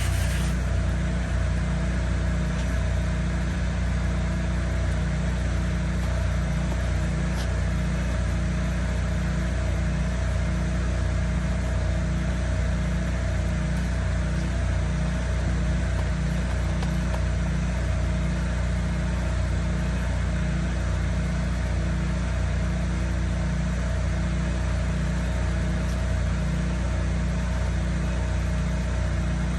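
Petrol pressure-washer engine running steadily under load, with a regular pulsing throb.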